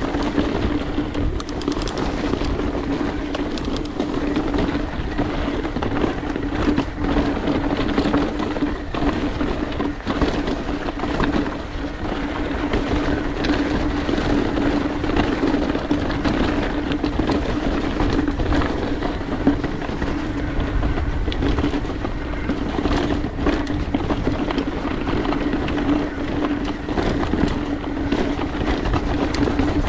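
Mountain bike riding down a rough dirt singletrack: tyres rolling over dirt and rock, the bike rattling with many small knocks, over a steady buzz.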